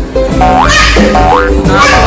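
Playful background music with a steady low beat, laced with quick upward-swooping notes about twice a second.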